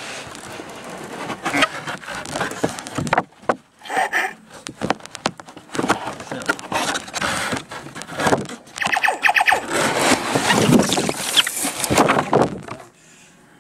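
Crinkling and rustling of plastic packaging, cardboard and paper as a newly unboxed toy robot and its instruction sheet are handled, with a couple of brief squeaky sounds about four and nine seconds in.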